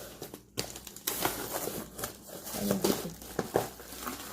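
Packaging crinkling and rustling in irregular bursts as a stainless steel cookware lid is unwrapped.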